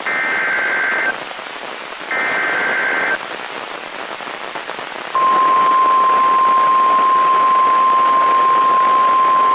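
Weather radio alert over radio hiss: two one-second bursts of SAME digital header data, a buzzing two-tone warble, about a second apart. About five seconds in, the steady single-pitched weather radio warning alarm tone begins and holds, marking the start of a new warning.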